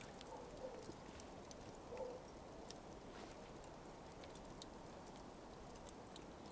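Smouldering coals crackling faintly: scattered small ticks and pops over a soft steady hiss, with a slightly louder pop about two seconds in.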